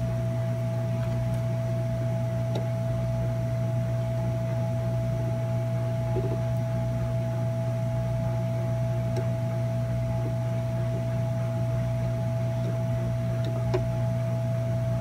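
Steady electrical hum from running workbench equipment, a low drone with a thin high tone held over it, and a few faint ticks.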